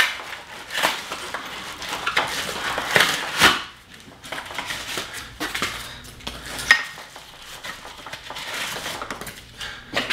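Packing plastic and cardboard rustling and tearing as they are pulled off a folded golf push cart, with irregular clicks and knocks from its frame and wheels being handled. The busiest handling is around three seconds in, and there is one sharp click near the end.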